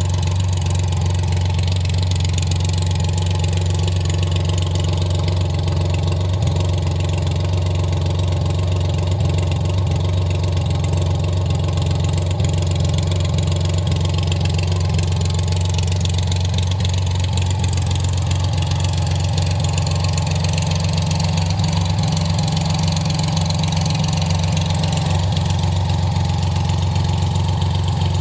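BMW cafe racer motorcycle engine idling steadily.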